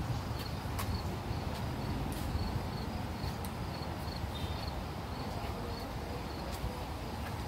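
Insect chirping high and regularly, a couple of times a second, over a steady low rumble.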